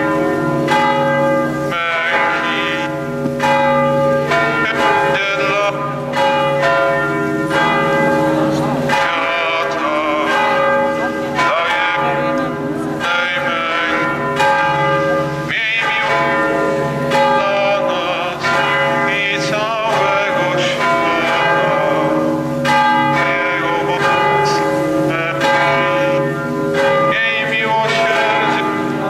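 Several church bells ringing together without pause, struck over and over so that their tones overlap and hang on: bells rung for a funeral.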